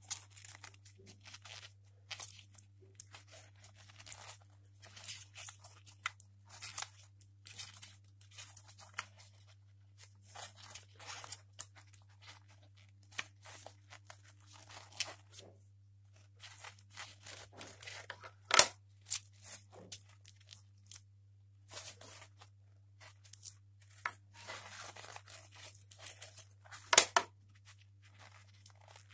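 Handling noise: rubber-coated gloves rubbing and rustling on a plastic wireless-earbud charging case, with scattered small clicks and two sharper, louder clicks, about two-thirds in and near the end, as the earbuds are worked out of the case. A low steady hum runs underneath.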